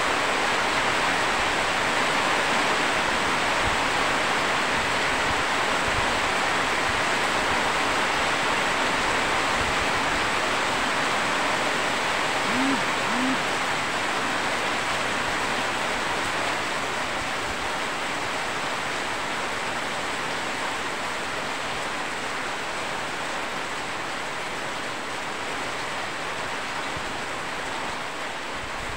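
Heavy rain falling steadily, a dense hiss that eases slightly toward the end. Two short, low rising calls sound briefly about halfway through.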